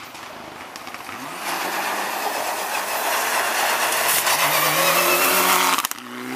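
Mitsubishi Lancer Evolution rally car on a loose gravel stage: the engine climbs in pitch and grows loud about a second and a half in, then holds high revs over a hiss of tyres and spraying gravel. It breaks off abruptly near the end, and another engine note follows.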